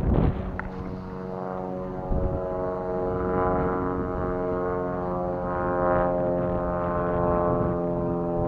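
Steady engine drone: an even, pitched hum with many overtones that holds its pitch, swelling a little in loudness in the middle. A gust of wind buffets the microphone near the start.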